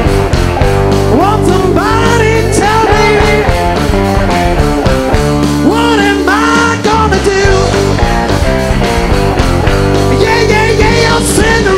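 Live rock band playing loud. A guitar or voice slides notes up and down over held bass notes.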